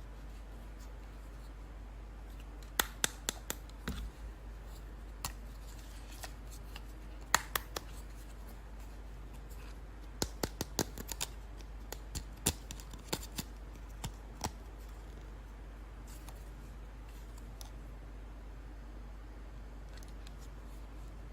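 Scissors snipping at toy packaging in several short runs of sharp clicks, over a steady low hum.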